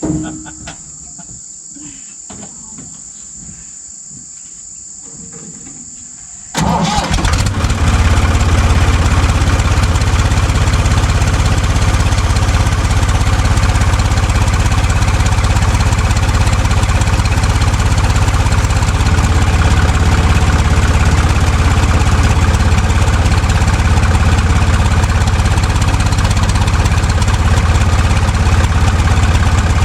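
Crickets trilling steadily, then about six and a half seconds in the backhoe's engine starts and settles into a loud, steady run with a deep hum.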